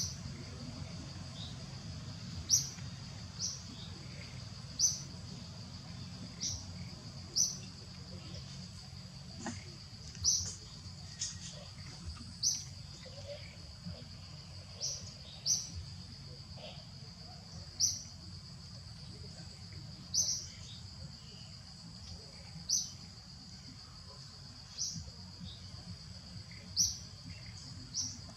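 A steady, high insect drone, with a short, high, rising chirp repeated every two to three seconds.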